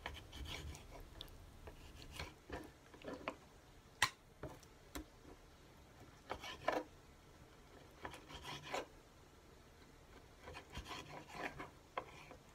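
Knife cutting lamb testicles on a cutting board: faint, scattered scraping and rubbing strokes, with a sharp tap of the blade on the board about four seconds in.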